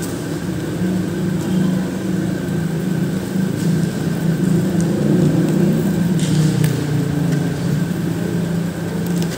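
A steady low hum like an engine running, wavering slightly in pitch and growing a little louder in the middle, with a few faint clicks.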